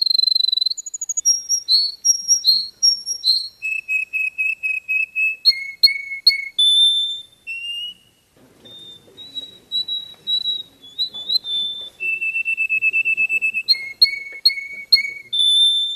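Saffron finch singing: clear whistled notes in phrases, each a quick run of one note repeated several times a second, the pitch changing from phrase to phrase. There is a brief pause about halfway through.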